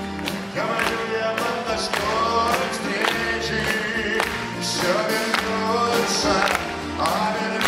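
A man singing to a strummed twelve-string acoustic guitar in a live concert performance. The guitar is strummed steadily in a regular rhythm under the voice.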